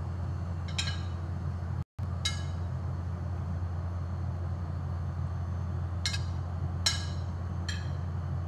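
A serving spoon clinks against the pot and plate five times, short sharp clinks spaced irregularly, over a steady low hum. The sound cuts out for an instant just before two seconds in.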